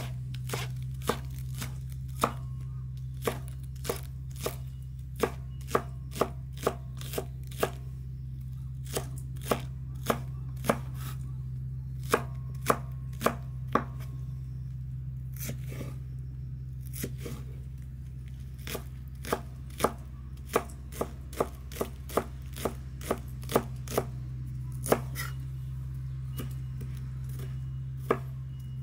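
A kitchen knife chopping a Japanese long green onion (negi) into small rounds on a wooden cutting board: sharp, irregular knocks of the blade on the board, about one or two a second and softer around the middle, over a steady low hum.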